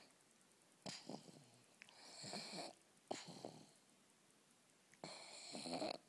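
Pug snoring in rough, rattling breaths, four bursts, some swelling louder before cutting off. The noisy snore is typical of a short-muzzled breed's narrow nasal airway.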